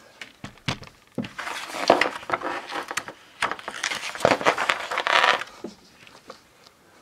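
Glossy magazine pages being turned by hand: paper rustling and crinkling in two long swells with sharp snaps, dying away near the end.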